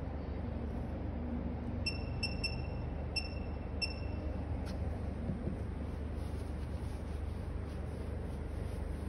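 Steady low background hum, with five short, high, flat-pitched electronic beeps in quick succession about two to four seconds in, and a single click just after.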